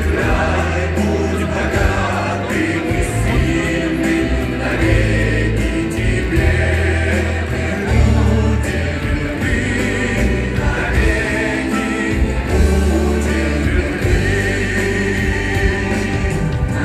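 A folk choir singing a song over amplified music with a deep bass line, played through a hall's loudspeakers.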